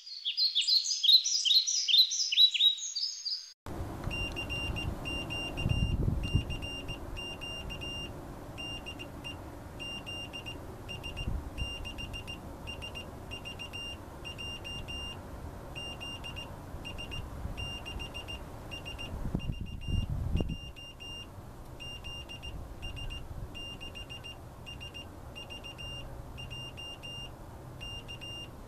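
Morse code (CW) sent as a single high keyed beep tone: the callsign 'DE ZS6SVJ' three times, ending with 'K' to hand over to the other station, over a low wind rumble that swells twice. It is preceded by about three and a half seconds of louder high chirping.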